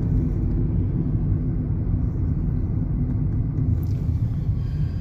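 Steady low rumble of road and engine noise heard inside a moving car's cabin while it drives along a highway.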